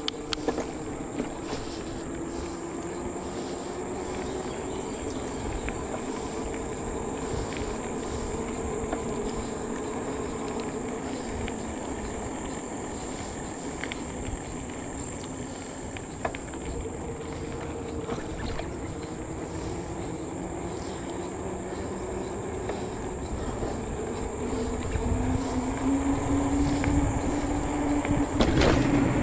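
A steady, high-pitched chorus of insects in the trees, over the rolling noise of e-bike tyres on asphalt and a low hum that slowly slides in pitch. The road noise grows louder near the end.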